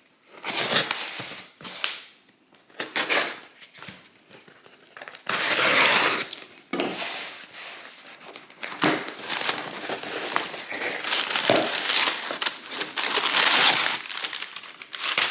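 A shipping package being opened by hand: packing material crinkling and rustling in irregular bursts, with tearing. The loudest stretch comes about five to six seconds in.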